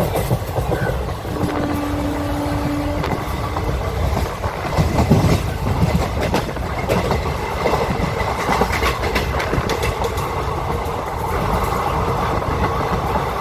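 Train running on the rails: a steady low rumble with the clicking and clacking of wheels over the track. A brief steady tone sounds about a second in.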